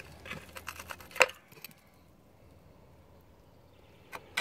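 Light clicks and taps of a hand handling an old rusted plug insert in a metal wall housing, with one sharper click about a second in. A couple of seconds of near silence follow, then a few more clicks near the end.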